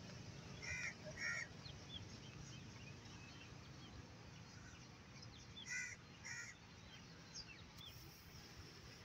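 Birds calling: two pairs of short, harsh calls, one about a second in and another around six seconds, with faint small chirps scattered throughout. Underneath is a low, steady background rumble.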